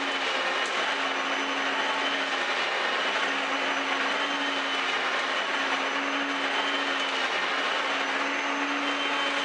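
Upright vacuum cleaner motor running steadily, a loud even rush of air with a low hum and a high whine.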